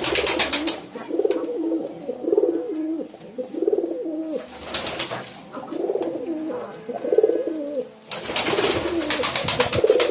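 Pigeons cooing over and over, low rolling coos one after another. Three times a burst of rustling noise cuts in over the coos.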